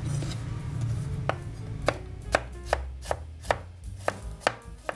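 Chef's knife slicing through cabbage core on a bamboo cutting board, each cut ending in a sharp knock of the blade on the board. The cuts start a little over a second in and come about two to three a second.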